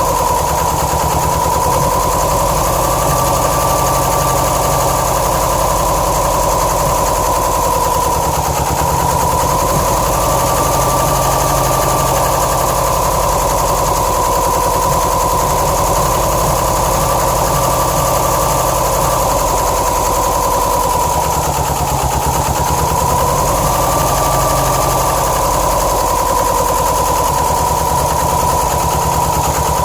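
2007 Subaru STI's turbocharged flat-four engine idling roughly, its note wavering slowly up and down. The owner blames the passenger-side AVCS unit, where a shredded check-bolt screen probably blocked the solenoid and starved cylinders 1 and 3 of oil.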